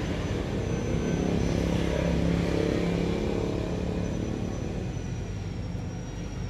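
Kubota L3001 tractor's diesel engine idling steadily, heard up close from the engine bay.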